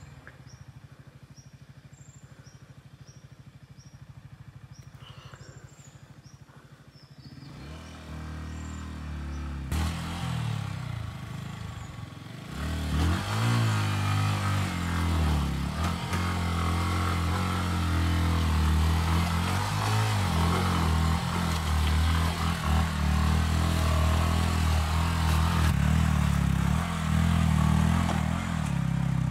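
Yamaha R15 single-cylinder sport-bike engine, idling quietly at first, then growing louder from about a third of the way in and revving up and down under load as the bike is worked over a rough, rocky, muddy track.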